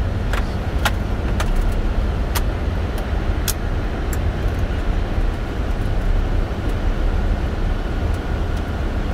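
Boeing 747-400 flight deck noise in flight: a steady low rumble, with a few sharp clicks in the first four seconds.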